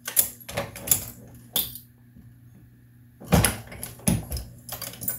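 Sharp metallic clicks, knocks and clinks of a Dillon 550C progressive reloading press being cycled while 9mm bullets are handled in its plastic bin: a few taps in the first second and a half, a pause, then a cluster of knocks and clinks from about three seconds in.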